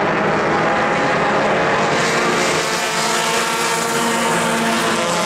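A pack of pure stock race cars racing together, several engines running at speed in a loud, steady, overlapping drone.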